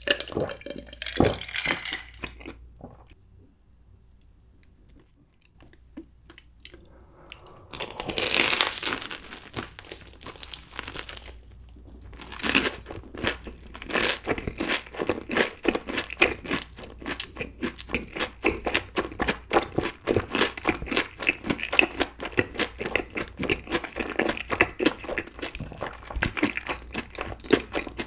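Close-miked eating of a crumb-coated mozzarella corn dog in cheddar cheese sauce: a few swallows from a drink at the start, a loud burst of crunching about eight seconds in, then dense, rapid crunchy chewing with wet mouth sounds to the end.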